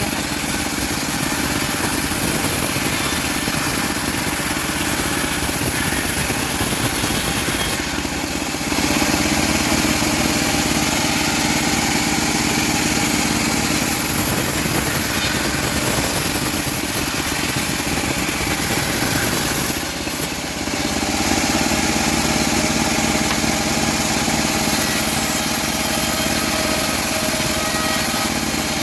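Small engine of a homemade bandsaw mill running steadily while sawing teak. Its level dips briefly about 8 seconds in and again about 20 seconds in, then picks up again slightly louder.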